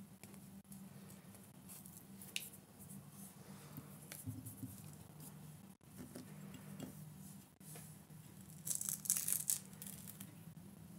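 Quiet handling noises of doll-wig work: light rustles and small clicks as locks of hair and tools are handled, with a louder scratchy rustle about nine seconds in, over a faint steady low hum.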